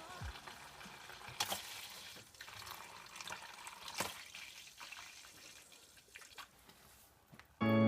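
Faint dripping and trickling liquid with a few light clicks. Loud music comes in near the end.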